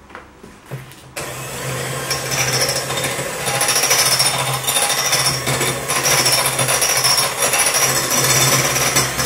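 Electric hand mixer starting about a second in and then running steadily, its beaters whirring through heavy cream in a bowl as it is whipped.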